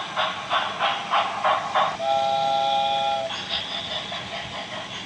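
Battery-powered toy steam locomotive's sound effect: rhythmic electronic chuffing about four times a second, then a steady whistle for just over a second, then a fainter hiss.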